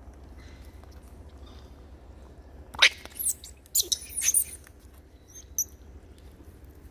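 Long-tailed macaques giving short, high-pitched squeals. A cluster of several sweeping calls comes about three seconds in and lasts under two seconds, and one brief call follows a little later.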